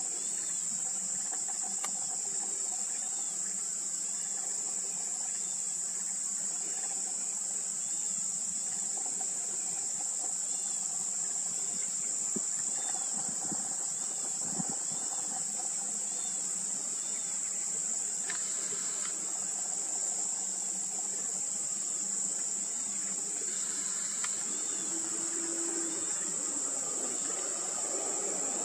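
Steady high-pitched insect chorus, a continuous buzzing drone from the roadside vegetation. Near the end a heavy truck's engine becomes audible as it draws closer.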